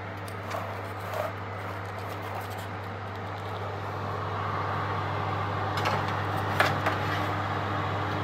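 Electric oven running with a steady hum from its fan after preheating, with a couple of light knocks near the end as the cupcake tray is handled at the open oven.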